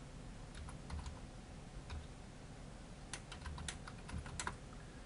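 Computer keyboard being typed on: soft, scattered key clicks, with a quicker run of keystrokes about three seconds in.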